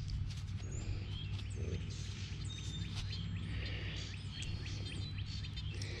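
Birds chirping: short high calls and whistled glides scattered throughout, over a steady low hum.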